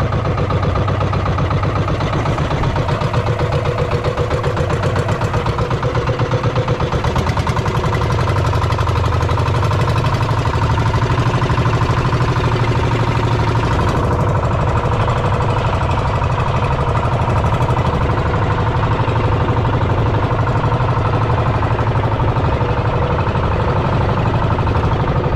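The engine of a small motorized outrigger boat running steadily, with a fast, even pulsing beat.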